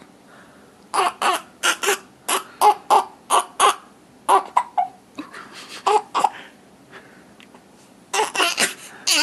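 A baby fussing in runs of short cries, about three a second. There is a pause after about five seconds, then a few more cries and another quick run near the end.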